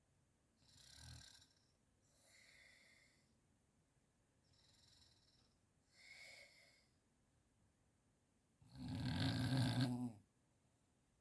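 A sleeping person snoring: several soft snoring breaths, then one loud, deep snore lasting about a second and a half near the end.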